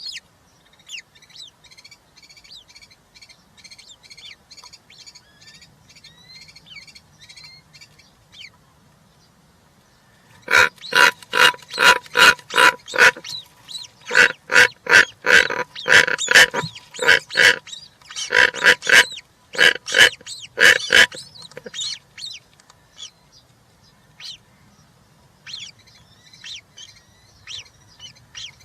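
European rollers giving a loud run of harsh, rasping calls, about four a second for roughly ten seconds in the middle. Faint, quick high chirping of small birds comes before and after.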